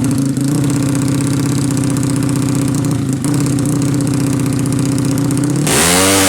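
Fuel-injected 450cc MX drag bike engine with twin mufflers running at a steady fast idle, then revved hard near the end.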